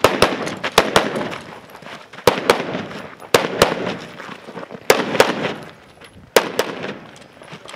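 Semi-automatic rifle fired in double taps: six pairs of shots, about a quarter second between the two shots of a pair and a second or more between pairs, each shot trailing off in a short echo.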